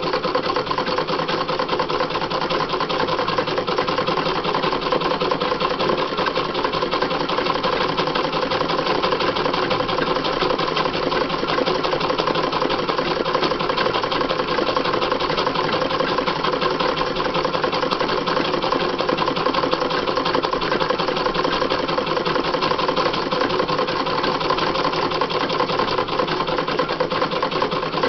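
Sewing machine stitching steadily without a break, doing free-motion embroidery.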